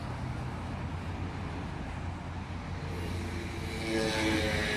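Steady low hum of a running vehicle engine. About three seconds in, higher pitched tones join it and the sound grows louder.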